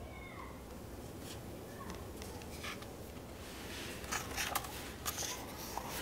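A paper page of a softcover photobook being turned by hand and smoothed flat: a soft dry rustle with a few small slaps and clicks, mostly in the last two seconds.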